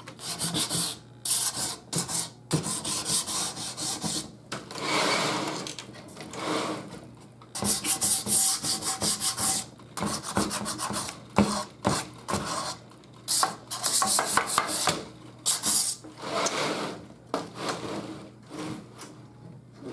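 Hand sanding block rubbing back and forth on a black-painted wooden shelf frame, in runs of quick strokes broken by short pauses, wearing through the paint to distress it.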